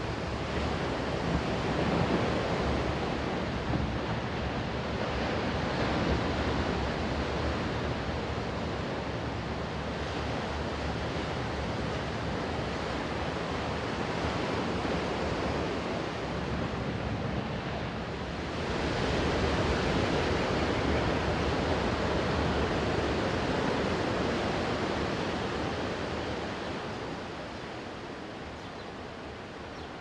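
Small waves breaking and washing up a sandy beach: a steady hiss of surf that rises and falls as each wave comes in, with a longer, louder surge a little past halfway that fades off near the end.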